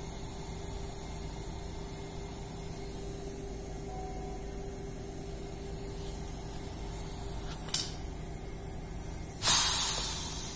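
A click, then about a second and a half later a sudden loud hiss of pressurised air escaping from a VAZ 2110 plastic coolant expansion tank as its cap is unscrewed, fading away over about a second. A steady hum runs underneath.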